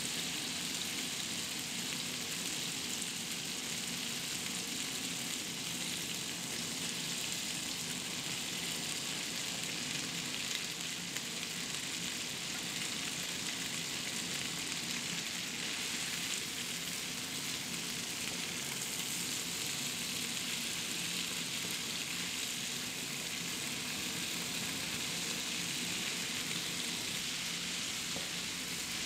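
Food frying in a pan: a steady, even sizzle.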